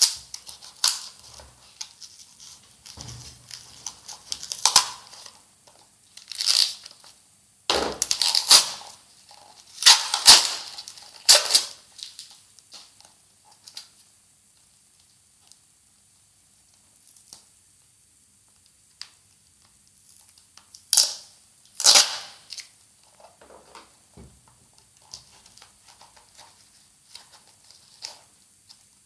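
A tightly sealed package being torn and pulled open by hand, in irregular bursts of tearing and crinkling. The loudest rips come about eight to twelve seconds in, and two sharp ones come later, with softer rustling in between.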